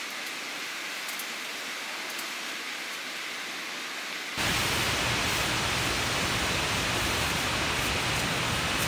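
Steady featureless hiss of background noise that turns abruptly louder and fuller, with more low rumble, about four and a half seconds in.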